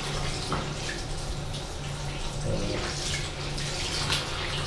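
Water running steadily from a sink tap in a small tiled bathroom, with a few light knocks against the basin.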